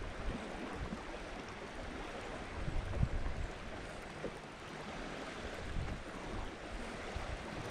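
Wind buffeting the microphone in gusts over the steady wash of choppy lake water lapping around a small boat.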